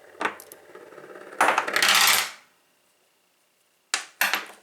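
Master padlock spun on a countertop: a metallic whirring rattle that builds for about a second and fades away, like a coin spinning down. Near the end come two sharp clacks of the lock on the counter.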